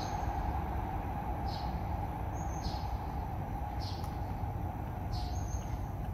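A bird giving short high chirps about once a second over a steady low rumble of background noise.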